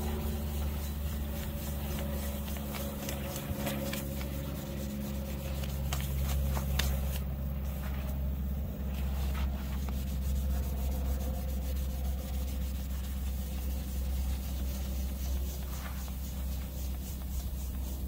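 Abrasive paper rubbing and scraping in irregular strokes against the brass bell of an old steam whistle, over a steady low mechanical hum.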